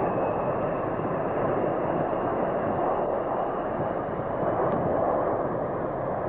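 Airplane engine running steadily, with a faint high whine above the engine noise.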